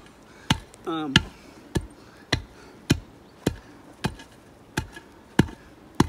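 A concrete cinder block lifted and dropped again and again onto loose soil to tamp it firm, giving about ten thuds in a steady rhythm of nearly two a second.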